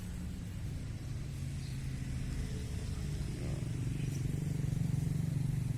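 A motor vehicle engine running steadily, growing louder about four seconds in.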